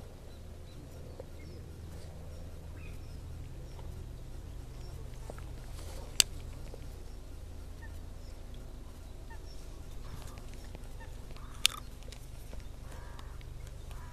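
Waterfowl calling a few times in the second half, over a steady low rumble. Two sharp clicks about five and a half seconds apart are the loudest sounds.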